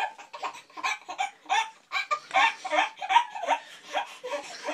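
A toddler laughing in quick repeated bursts, loudest about halfway through.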